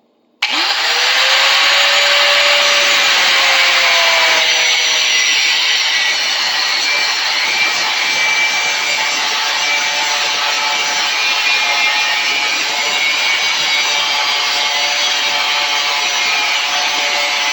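Angle grinder switched on about half a second in, its motor whine rising to speed, then a steady harsh grind as the disc cuts into a steel gear-puller screw.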